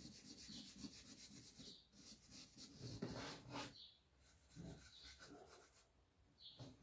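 Faint, rapid rubbing strokes on the painted surface of a wooden box, with a couple of soft bumps as the box is handled.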